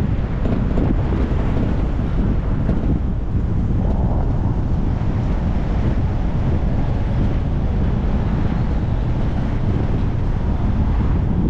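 Steady wind rumble on the microphone over the road noise of a car driving.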